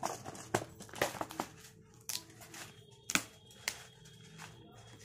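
Plastic snack packet crinkling and rustling as it is handled and pulled open: a string of irregular sharp crackles.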